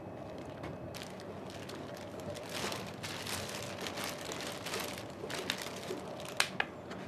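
Thin plastic bag crinkling and rustling as hands open it, dense for a few seconds and then sparser. Near the end come a couple of sharper crackling snaps.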